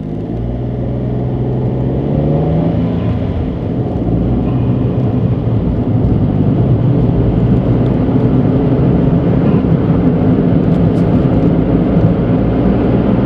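Suzuki Alto Turbo RS's 660 cc turbocharged three-cylinder engine and tyre noise heard inside the cabin: the engine note rises as the car accelerates over the first couple of seconds, then settles into steady running with road rumble.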